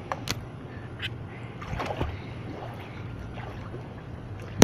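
Pool water sloshing and lapping close to a handheld phone's microphone, with a steady low rumble and a few sharp knocks of handling, the loudest near the end.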